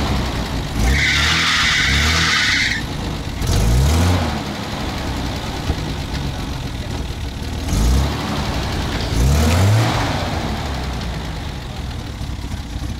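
Off-road car engine revved in four short rising bursts over a steady run, the driver trying to drive the stuck vehicle free. About a second in, a loud hiss lasts for about two seconds.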